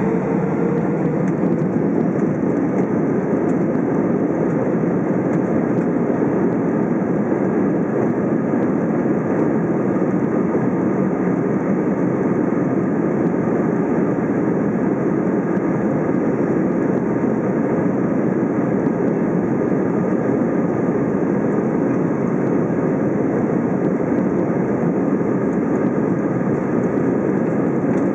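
Steady cabin noise inside an Airbus A320 moving along the ground: jet engines running and the airframe rolling, holding an even level throughout. A hum fades out in the first second.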